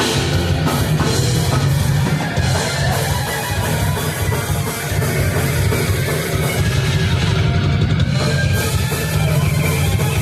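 Heavy metal band playing live: distorted electric guitars and bass over a pounding drum kit, loud and dense throughout.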